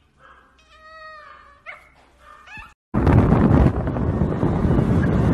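A cat meowing: one long drawn-out meow, then two short calls. About three seconds in, a loud steady rushing noise suddenly takes over.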